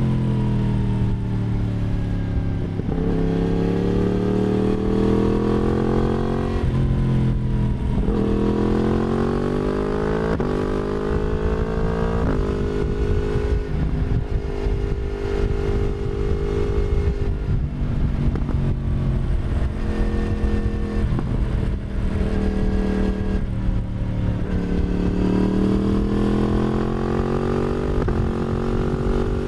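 Yamaha MT-10's crossplane inline-four exhaust through an Akrapovic slip-on and decat midpipe, on the move. The revs fall at first, then climb in pulls through the gears, the pitch dropping at each upshift. It holds a steady cruise through the middle and makes another pull and shift near the end.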